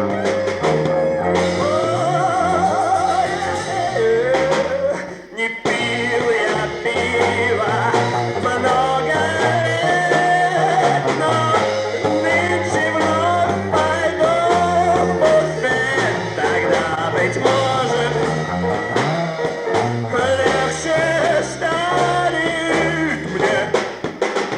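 Rock band playing live: an instrumental passage with a bending lead guitar line over a stepping bass line and drums, briefly dropping away about five seconds in.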